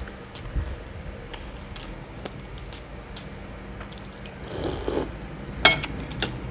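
Close-up eating sounds: wet chewing with small mouth clicks, then a short slurp of soup from a spoon about four and a half seconds in, followed by a sharp clink near the end.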